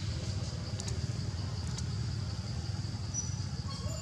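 Steady low outdoor rumble with a faint, steady high-pitched hum over it, a couple of faint clicks, and a thin high chirp starting near the end.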